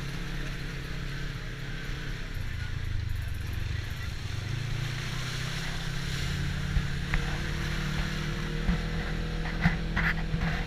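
ATV engine running, its pitch shifting up and down with the throttle, with a few sharp knocks near the end.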